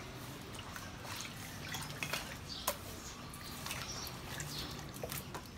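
Water sloshing and dripping as goat intestines are washed by hand in a bucket of water, with small scattered splashes. A faint steady hum runs underneath.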